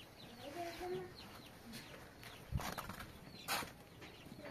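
Chickens clucking in short calls, with a couple of short sharp noises in the second half.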